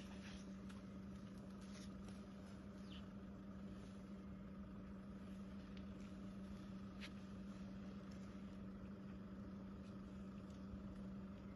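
Faint steady low hum of an idling vehicle engine, with a few faint clicks.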